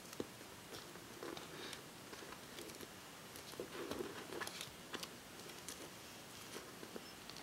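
Faint crinkling and small clicks of duct tape being folded and pressed flat by hand on a cutting mat, with a cluster of louder crackles around the middle.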